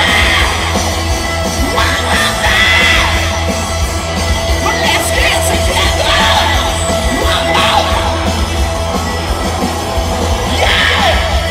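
Punk rock band playing live: the singer yells short shouted phrases into the microphone over electric guitar and drums, with a heavy low end.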